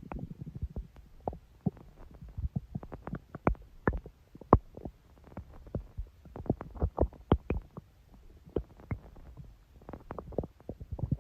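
Human stomach growling: a long run of irregular short gurgles and pops, with a denser rumble in the first moment.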